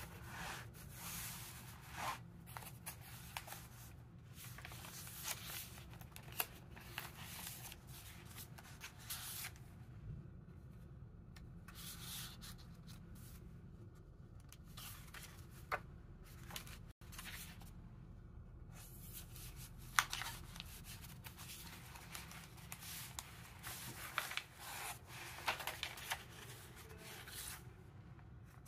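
Paper pages and cardstock tags of a handmade junk journal rustling and sliding as hands turn and handle them, coming and going in short bursts with a few sharp taps.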